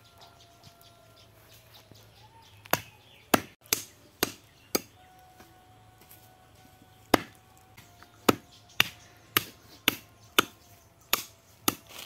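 Heavy cleaver chopping mutton on a wooden log block. Five sharp chops come in quick succession, then after a pause of about two seconds a run of eight more at about two a second.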